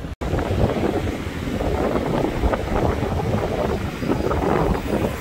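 Wind buffeting the microphone over breaking surf, in uneven gusts, with a split-second dropout just after the start.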